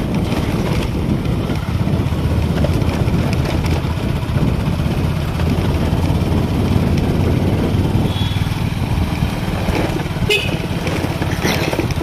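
Motorcycle engine running steadily while riding over a rough, stony dirt track, with a short higher-pitched sound about ten seconds in.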